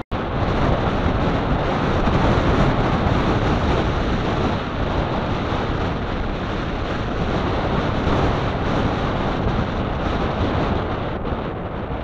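Strong wind blowing across the microphone: a loud, steady rushing noise that cuts out for an instant right at the start.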